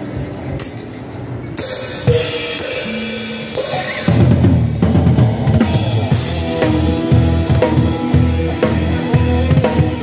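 Live rock band playing, led by a drum kit: bass drum, snare and cymbal hits under guitars, the full band coming in louder about four seconds in.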